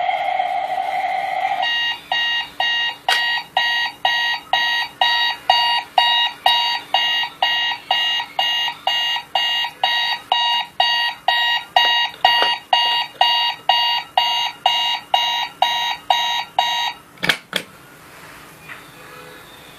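Rocket launcher novelty alarm clock sounding its alarm: a steady electronic tone for about the first second and a half, then fast repeated electronic beeps, about two a second. The beeping stops abruptly after a couple of sharp clicks about 17 seconds in.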